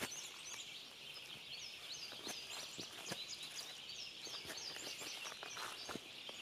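Birds singing outdoors: many short, high chirps, each sliding down in pitch and repeated throughout, over a steady high hiss, with a few faint clicks scattered through it.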